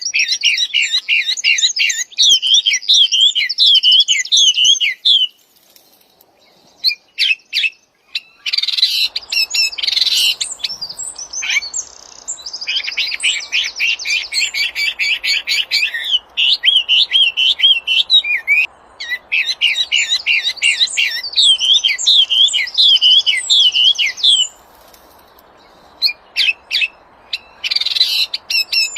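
A songbird known in Indonesia as the wambi singing vigorously: loud, rapid runs of repeated whistled and warbled notes. It pauses twice for a few seconds, once near the first third and once near the end.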